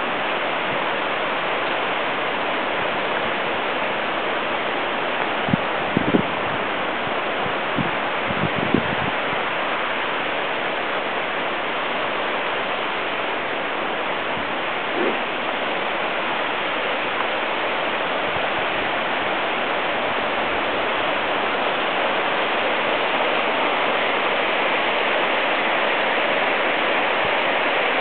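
Steady rush of Vickery Creek's rapids, growing a little louder near the end. A few brief knocks sound in the first half.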